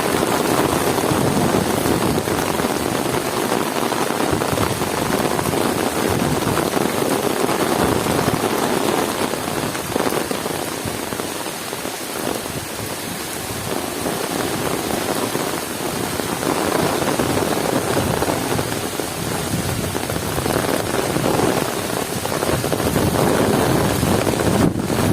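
Heavy rain pouring steadily as a dense, even hiss, easing slightly and swelling again in slow waves.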